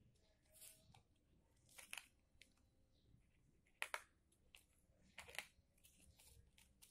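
Quiet handling of a busy book's stick-on cardboard pieces, with about five short rasping scratches as pieces are pulled off and pressed onto the hook-and-loop dots; the loudest comes just under four seconds in.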